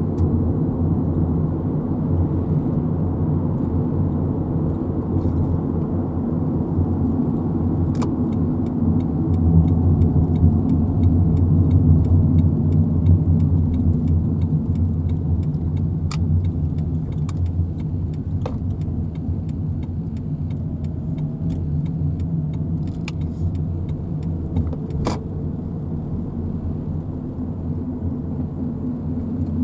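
A car running, a steady low rumble that grows louder about a third of the way through and then eases, with a few sharp clicks.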